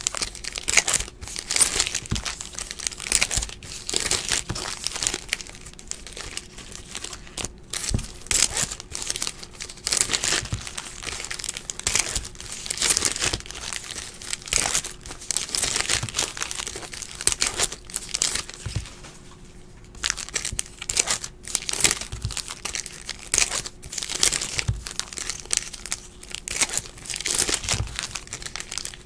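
Foil trading-card pack wrappers crinkling and tearing as baseball card packs are ripped open and handled, a continuous crackly rustle with a brief lull about two-thirds of the way through.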